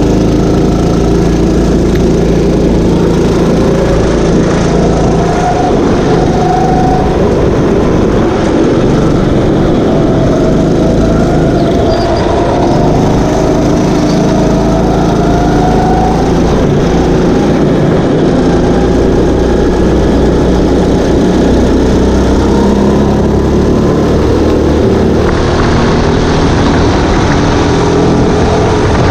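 Go-kart engines at racing speed, loud and continuous, their pitch repeatedly rising as they accelerate and dropping back as they lift off. In the last few seconds a rush of hiss joins the engine sound.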